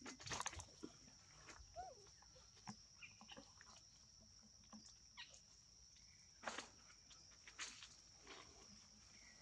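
Quiet outdoor scene of macaques foraging: a steady high insect drone with scattered rustles and clicks from the monkeys moving and handling food in dry leaves, and one brief squeak about two seconds in.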